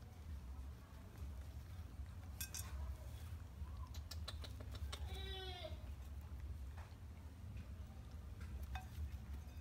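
A baby macaque gives one short call with an arching pitch about halfway through, after a run of light clicks and taps as it pulls at a ceramic plate; a low steady hum runs underneath.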